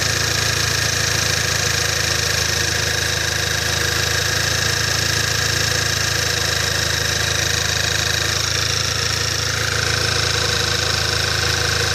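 Škoda Octavia A5 engine idling steadily, with faint steady high-pitched tones over the idle. The rubbing squeak that normally shows up about a minute after start-up is not coming through.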